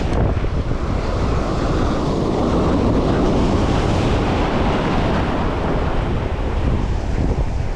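Ocean surf breaking and washing up the beach, with strong wind buffeting the microphone in a steady, loud rush.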